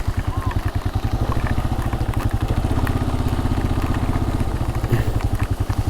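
Motorcycle engine running at a steady idle, an even low pulsing, with rain falling.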